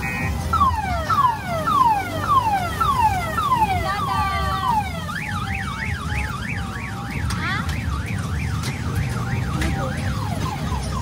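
Electronic siren and alarm sound effects from a kiddie car train ride's speaker. First comes a run of falling sweeps, about two a second. About five seconds in, they give way to a rising-and-falling siren wail, and quicker falling chirps come near the end, all over a steady low rumble.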